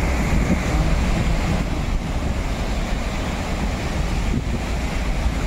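Water gushing from the outlets at the foot of a concrete dam and churning in the basin below: a steady rushing noise, with wind rumbling on the microphone.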